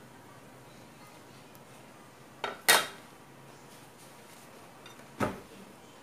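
Kitchenware clatter: a ceramic bowl set down on a tiled counter with a sharp clink about two and a half seconds in, then a metal spoon knocking against dishes about five seconds in.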